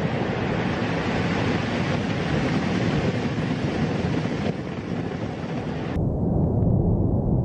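Cumbre Vieja volcano erupting: a loud, steady rumble with a broad hiss over it. About six seconds in the sound cuts to a deeper rumble without the hiss.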